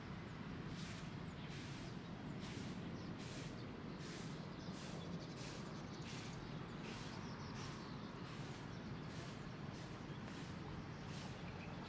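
Outdoor garden ambience: a high-pitched chirp repeating about twice a second, over a steady low hum of distant traffic.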